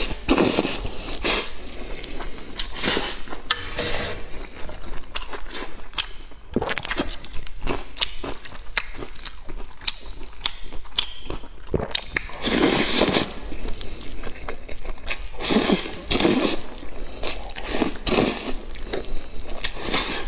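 Slurping and chewing of wide, chili-oil-dressed youpo noodles. Several long slurps, the loudest about two-thirds of the way through, with many small wet clicks of chewing between them.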